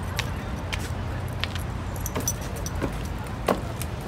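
Footsteps in flip-flop sandals on concrete and then wooden steps, sharp clicks about every half to three-quarters of a second, over a steady low rumble.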